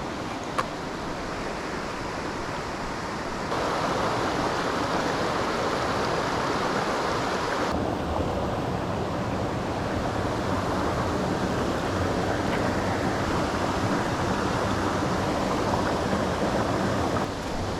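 Steady rush of a mountain torrent's flowing water, growing louder about three and a half seconds in.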